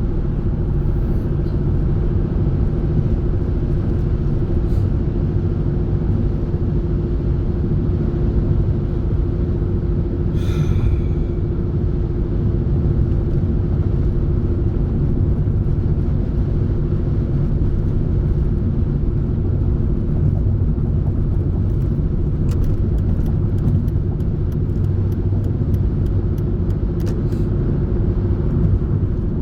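Steady low road rumble inside a moving car's cabin, with a constant engine or drivetrain hum. About ten seconds in there is a brief higher-pitched squeak, and faint ticks come near the end.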